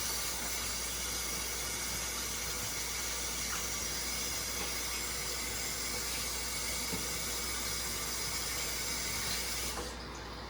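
Steady rushing hiss of water, starting suddenly and cutting off suddenly near the end, lasting about ten seconds.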